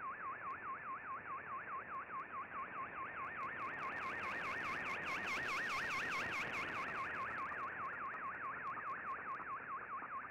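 Digital-mode picture signal from a shortwave broadcast, heard through an Icom IC-R8600 receiver: a tone warbling smoothly up and down about four or five times a second over steady band hiss. In the middle it grows a little louder, with a fainter higher copy of the warble and scattered static clicks.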